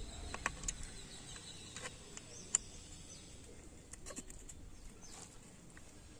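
Scattered light metallic clicks and taps as a Hero Honda Passion Pro's piston is handled and fitted onto the connecting rod, metal tools and rods touching the piston and crankcase. A small cluster of clicks comes near the start, a sharper tick about two and a half seconds in, and another cluster about four seconds in, over faint outdoor background noise.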